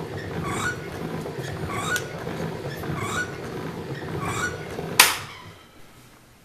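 Homemade low-pressure organ air supply with bellows and reservoir, running with a steady low noise and a rhythmic wheeze about once every second and a quarter, feeding a wooden air cylinder. A sharp click comes about five seconds in, and the running sound then dies away.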